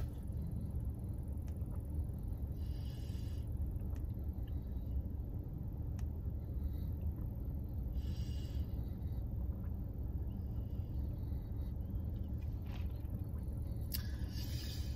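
Steady low rumble inside a parked car with the engine idling. Three short breathy hisses about five seconds apart come from sips of iced coffee through a straw and a breath out through the open mouth near the end, against the burn of a ghost-pepper donut.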